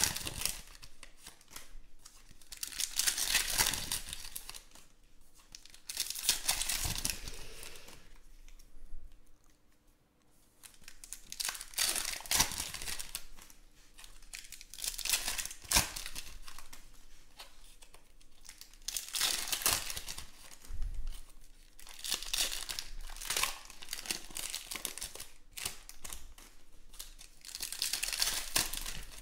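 Panini Contenders football trading-card pack wrappers being torn open and crinkled by hand, in repeated bursts of rustling with short pauses between.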